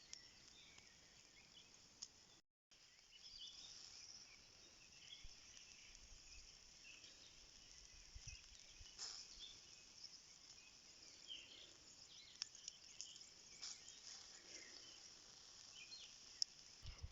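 Faint rural outdoor ambience: a steady high hiss of insects with scattered short bird chirps. The sound drops out completely for a moment about two and a half seconds in.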